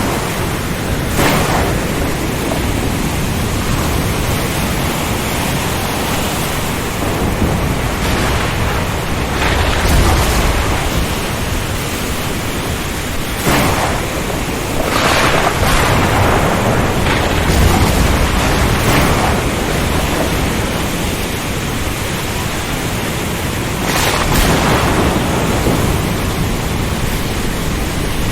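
Storm at sea: a dense, steady roar of wind, rain and surf, swelling in repeated short surges, with deep thunder rumbles about ten and eighteen seconds in.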